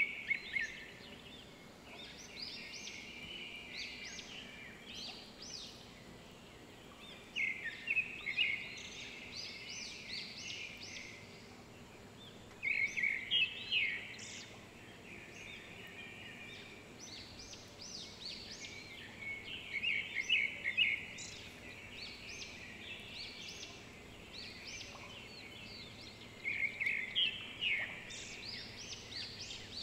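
A bird singing, repeating a short phrase of rapid high chirps about every six seconds, over a faint steady background hiss.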